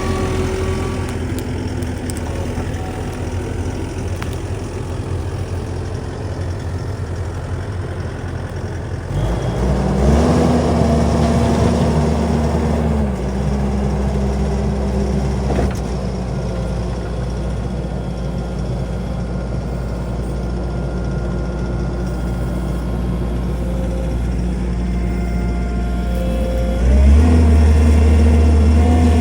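Skid steer loader's engine running steadily, revving up under load about nine seconds in and louder again near the end as the machine works the ground.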